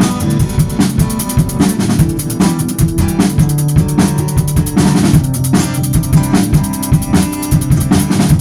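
Instrumental passage of a country song: a steady drum-kit beat with bass and snare hits under held pitched notes, no vocals.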